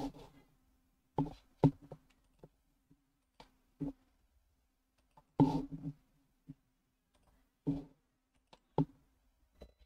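Scattered short clicks and knocks, about a dozen spread unevenly through the stretch, over a faint steady hum.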